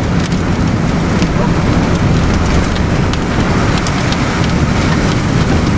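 Steady road and engine noise heard from inside a moving car, with many scattered sharp ticks striking the vehicle.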